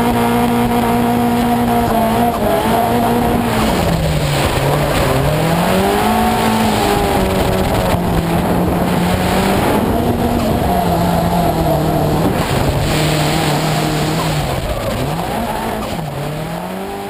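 Nissan drift car's engine held high in the revs, then dropping and climbing again several times while the car slides, with tyre squeal and wind rush underneath. The sound fades out near the end.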